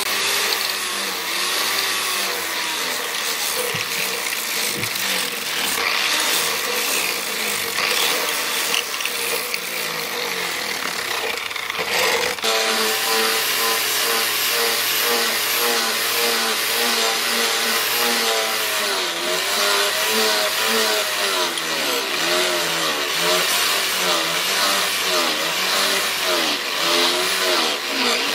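Electric angle grinder with a sanding disc running continuously, its motor pitch sagging and recovering as the disc is pressed on. After a break about twelve seconds in, it grinds the edge of a steel knife blade.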